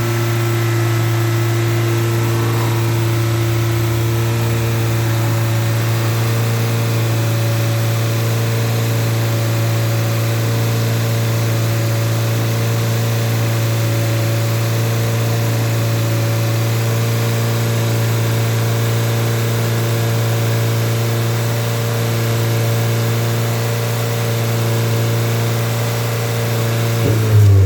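A 2020 Volkswagen Jetta GLI Mk7's turbocharged 2.0-litre four-cylinder engine idling with a steady, even hum. Near the end the note breaks up as the engine starts to rev.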